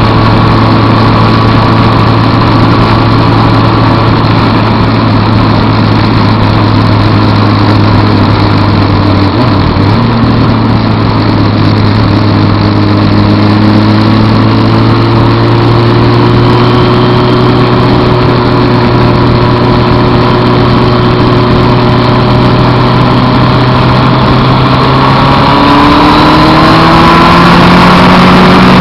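Suzuki Hayabusa inline-four motorcycle engine running at a steady cruise under rushing wind noise, then rising in pitch as the bike accelerates near the end.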